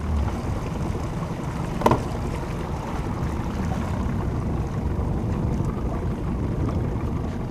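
Wind rumbling on the microphone over the steady wash of water around a drifting fishing boat, with one short sharp knock about two seconds in.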